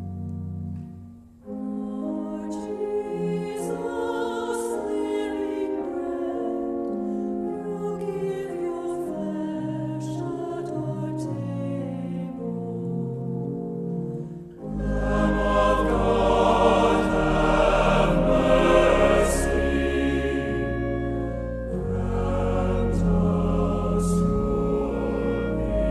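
Choir singing with instrumental accompaniment. The music dips briefly about a second in, then comes back and grows fuller and louder, with a deep bass, from about halfway through.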